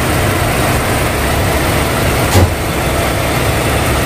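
Nissan X-Trail T30 engine idling steadily, running smooth with a new alternator pulley and alternator bearing fitted. There is a single brief knock about two and a half seconds in.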